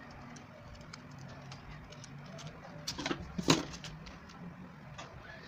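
Scissors snipping card paper, with small scattered clicks of paper handling. A few louder clacks about three seconds in as the scissors are set down on the table.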